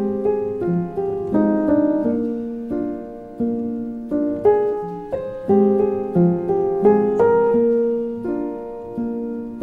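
Background music: a piano playing slow notes and chords, each struck and left to ring out.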